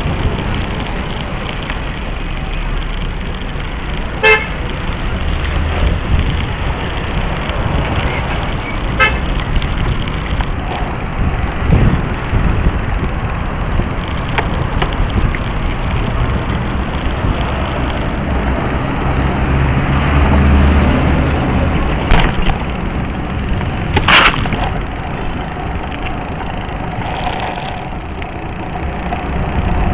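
Road rumble and wind noise from a bicycle riding over city pavement, picked up by an action camera mounted on the bike. A horn gives two short beeps in the first ten seconds, and a couple of sharp knocks come about two-thirds of the way through.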